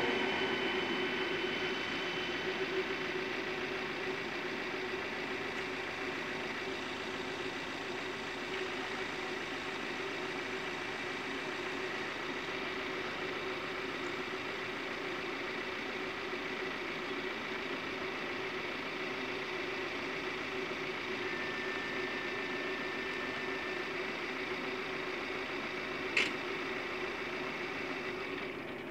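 A train fading away over the first few seconds, leaving a steady engine hum. A single sharp click comes near the end.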